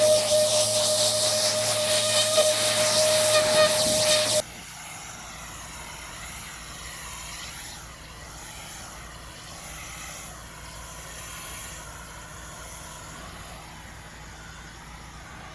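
Pressure washer jet spraying: a loud, steady hiss with a steady whine, cutting off suddenly about four seconds in. After that only a quiet, even background hiss remains.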